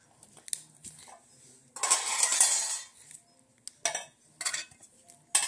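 Objects handled and clattered close to the microphone: a rattling, rustling burst about a second long starting nearly two seconds in, then a few sharp clicks.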